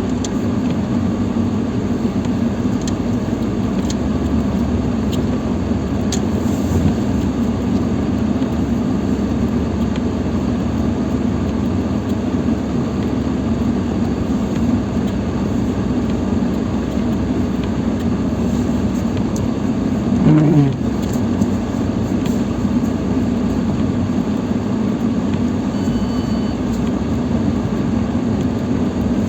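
Lada Niva Travel's four-cylinder engine pulling steadily under load as the car crawls through deep snow in low-range four-wheel drive with the centre differential locked. The engine note drops briefly about twenty seconds in.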